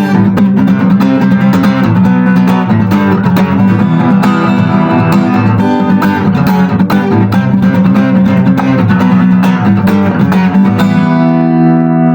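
Acoustic guitar strumming chords in a steady rhythm, then a final chord left to ring out near the end.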